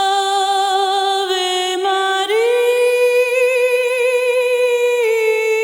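Background music: a high voice singing long held notes with a light vibrato, stepping up to a higher held note about two seconds in.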